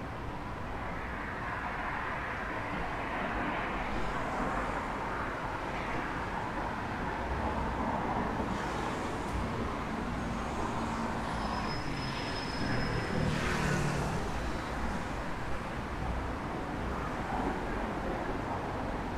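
Steady city road-traffic noise, a continuous hum of passing vehicles, with a brief louder swell about two-thirds of the way through.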